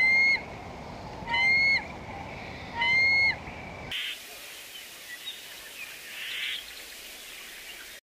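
Bird calls: three loud, short calls about a second and a half apart, each a held note that drops in pitch at its end. About four seconds in they give way to fainter, scattered chirps.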